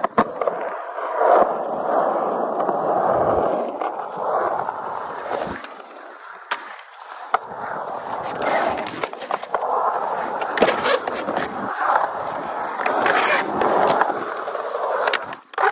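Skateboard wheels rolling fast over a smooth concrete bowl. The rolling noise swells and fades as the boards carve through the transitions, with a few sharp clacks of board on concrete.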